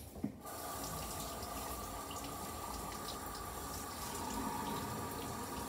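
Water running steadily, starting suddenly about half a second in, with a faint steady whine under the rush.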